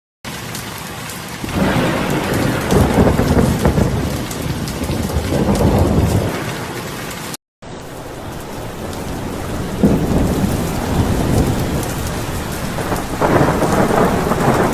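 Heavy monsoon rain pouring steadily, with thunder rumbling in several swells. The sound cuts out for a moment about halfway through, then the rain picks up again.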